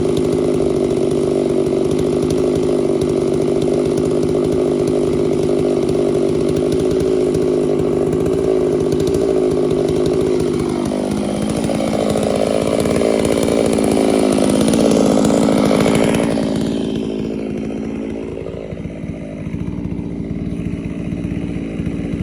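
Chainsaw engine running hard while cutting white oak for milling, holding a steady pitch, then wavering in pitch partway through before easing off to a lower, quieter run near the end.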